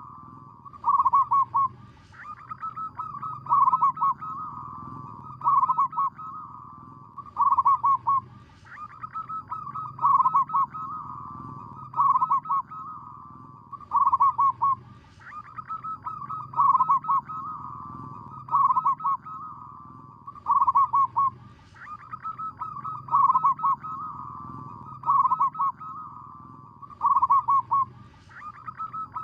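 Zebra dove cooing: a rapid, rattling, stuttering coo repeated about every two seconds over a softer running trill.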